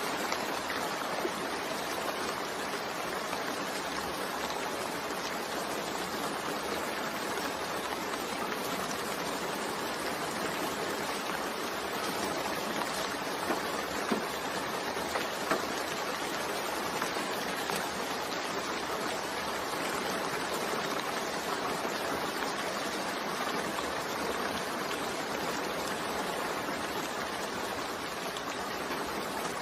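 Steady, continuous rain, an even hiss of falling water with a few light drop crackles about halfway through.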